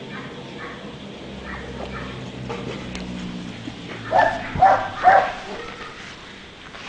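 Rottweiler puppy giving three short, high-pitched barks in quick succession, about four seconds in.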